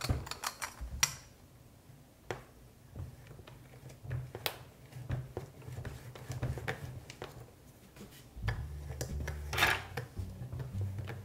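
Plastic Play-Doh rolling pin and tools clicking and knocking against a tabletop as they are handled, then a low rumble about two thirds of the way through as the roller is rolled over modelling dough.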